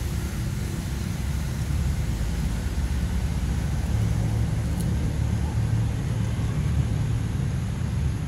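A steady low rumble, with a faint steady high hiss above it.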